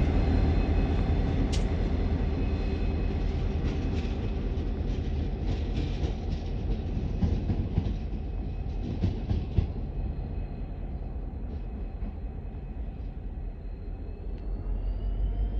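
Diesel locomotive G538, a G class running light, its EMD two-stroke diesel engine running steadily and growing fainter as it moves away. In the middle come a run of clicks from the wheels crossing rail joints.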